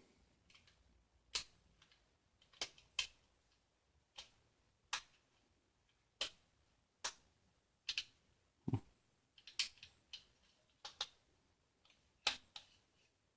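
Sharp, irregular clicks, roughly one a second, from driving screws with a flathead screwdriver into a plastic fan mount, with one duller knock about two-thirds of the way through.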